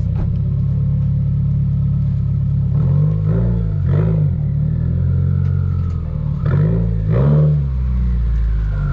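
Car engine idling steadily, blipped twice in quick succession about three seconds in and again twice about six and a half seconds in, each rev rising and falling back to idle.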